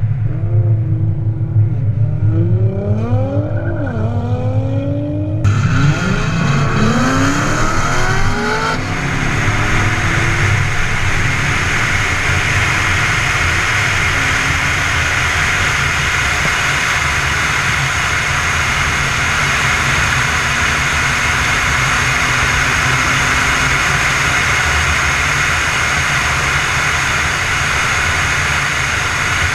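Car engine accelerating hard: its pitch climbs, drops back at each gear change and climbs again several times. About nine seconds in this gives way to a steady loud rush of wind and road noise at high speed.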